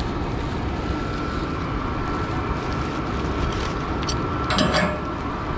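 Steady rushing wind over the microphone high up on a tower crane, with a faint, steady high tone under it. About four and a half seconds in comes a brief rustle of hands handling the hauled-up bag and hook.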